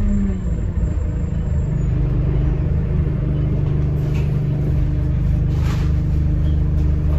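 Bus engine and road noise heard from inside the passenger cabin while the bus is moving: a steady low drone whose pitch dips at the start and then holds even. A brief hiss-like noise comes about six seconds in.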